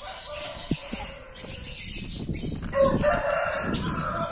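Domestic fowl calling, with one long held call in the second half over a noisy rustle.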